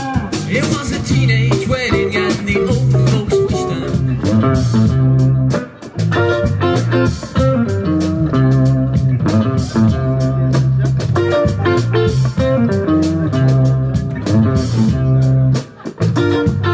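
Live rock-and-roll band playing an instrumental section: electric guitars over bass guitar and a drum kit, with no singing.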